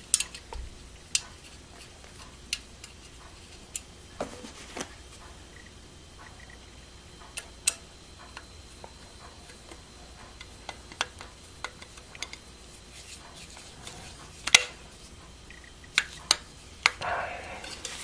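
Scattered light metallic clicks and taps of a Phillips screwdriver and screw against a steel hard-drive cage as a screw is driven into the side of a hard drive, with one sharper click a little past the middle.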